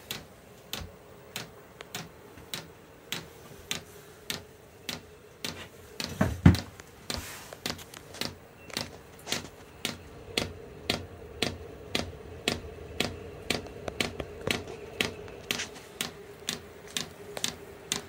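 Vevor 5 kW diesel air heater starting up: its fuel dosing pump ticks evenly about twice a second, metering diesel to the burner, over a steady hum from the heater's fan. One heavier knock sounds about six seconds in.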